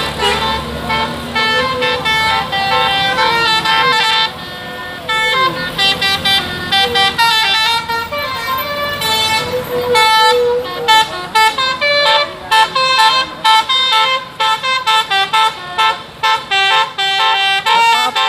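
Bus 'telolet basuri' multi-tone air horns, mounted as trumpets on the roof, playing a melody note by note: held tones at first, then quick staccato notes through the second half.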